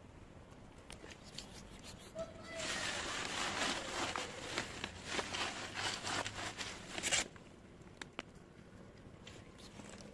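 Plastic packaging rustling and crinkling for about four and a half seconds, starting about two and a half seconds in and stopping abruptly, with a few small clicks before and after.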